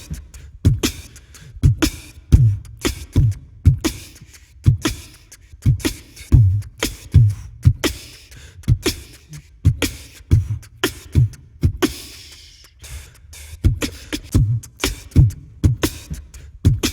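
Background music: a steady percussion beat of deep thumps and sharp clicks in a beatbox, vocal-percussion style.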